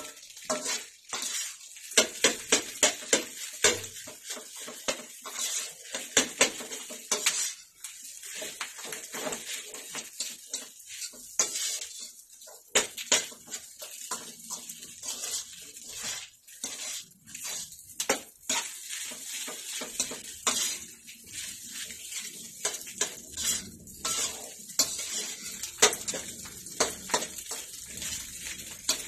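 A spatula scraping and knocking against a wok in quick, uneven strokes as rice is stir-fried, over a steady sizzle of the rice frying in oil.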